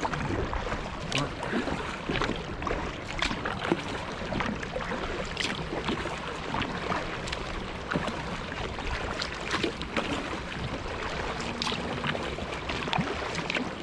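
Water splashing and lapping around a moving kayak, with many small, irregular splashes from paddle strokes and the bow cutting the water.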